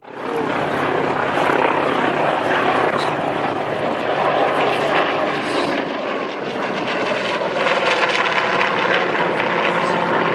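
Propeller-driven aircraft engine running loud and steady as it flies by. It begins abruptly and holds without a break.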